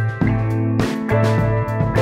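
Background music: a guitar-led track with sustained chords and a steady beat.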